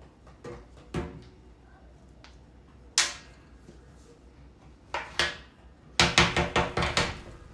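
A few sharp knocks and clatters of hard household objects. Near the end comes a quick run of about eight rapid strikes, some ringing briefly.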